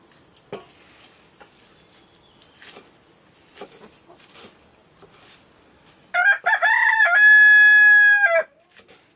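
A rooster crows once, loud, about six seconds in: a few broken notes, then one long held note for about a second and a half that drops at the end. Before it, soft irregular clicks of a curved sickle blade cutting leafy greens over a steel bowl.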